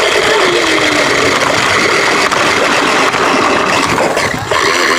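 Toy RC car's electric motor and gears running steadily with the wheels rolling, picked up loud and close.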